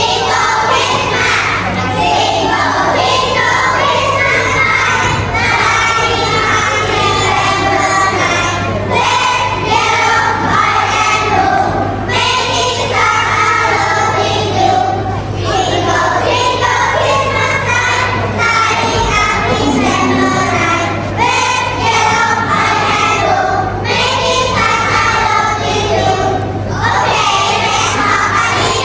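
A group of young children singing together along with a recorded Christmas song's backing music, continuously and at a steady level.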